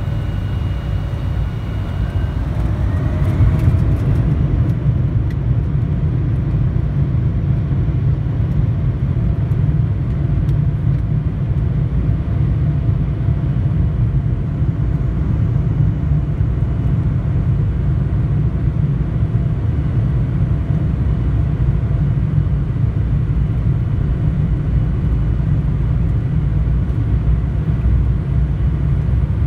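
Cabin sound of an Embraer E175 jet's GE CF34 turbofans spooling up for takeoff: a whine rises in pitch a few seconds in, then a steady, loud low rumble carries on through the takeoff roll.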